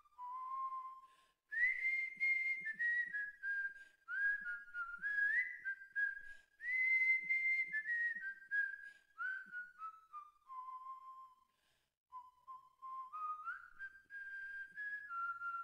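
A person whistling a melody, one clear note at a time, with notes that slide up into place and brief breaks between phrases.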